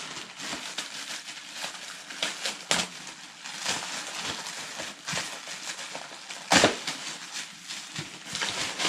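Clear plastic packaging crinkling and crackling as a toilet seat is pulled out and unwrapped, full of small sharp clicks, with one loud sharp crackle about six and a half seconds in.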